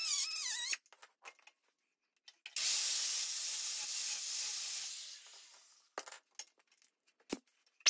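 Electric angle grinder grinding a weld on a steel car frame: a harsh hiss for about three seconds that tails off. Before it, a brief wavering high whine of an air die grinder, and a few knocks near the end.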